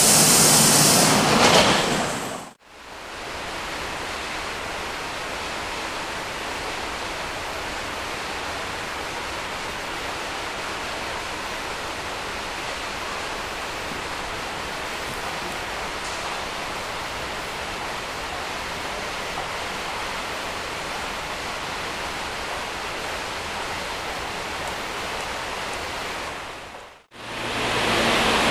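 A subway train's running noise, with a high hiss, fades out about two and a half seconds in. An even, steady rushing noise of the underground platform follows, with no distinct events, and cuts off just before the end.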